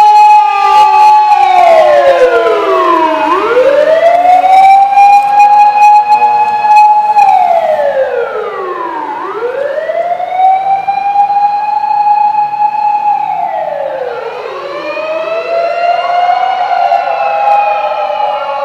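Fire engine's mechanical motor siren wailing. It winds up to a steady high pitch, holds there for a few seconds, then winds down, repeating about every six seconds and growing fainter in the second half.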